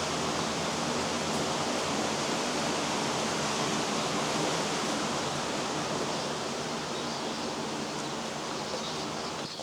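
Steady rushing of river water, a dense even wash of noise that eases a little near the end.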